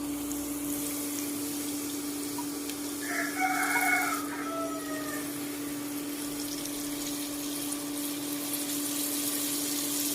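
Flour-coated sand gobies sizzling in hot oil in a pan, over a steady low hum. A rooster crows once about three seconds in, the loudest moment.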